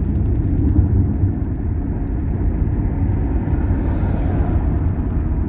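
Road vehicle driving along a highway: a steady low rumble of engine and tyre noise, with a brief swell of hiss about four seconds in.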